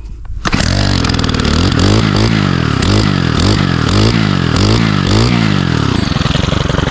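Stihl brush cutter's small petrol engine catching about half a second in after a hard start, blipped up and down several times in quick revs, then settling to a steady idle near the end.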